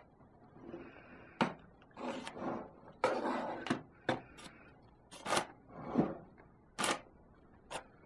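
Metal spoon spreading thick cream-cheese cheesecake filling in a parchment-lined tin: soft scrapes through the mixture broken by several sharp, irregularly spaced clicks of the spoon.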